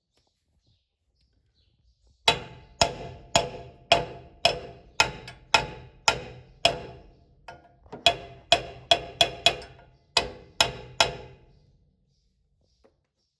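Hammer blows on steel, about seventeen sharp ringing strikes roughly two a second, in three runs with short pauses between. They are struck on a puller and a seized pulley on a combine countershaft to shock it loose.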